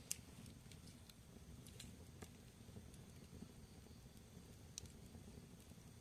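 Split logs burning in an open fireplace, crackling faintly. Scattered sharp pops sit over a low, steady flame noise, the loudest just after the start and another about five seconds in.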